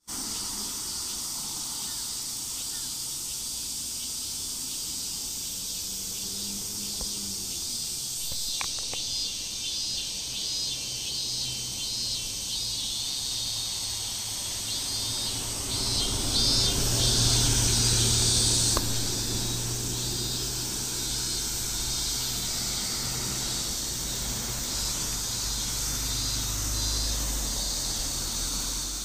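A city bus's engine as it approaches and drives past, loudest a little past halfway and fading over the following seconds. Insects chirp in a steady high-pitched pulsing rhythm throughout.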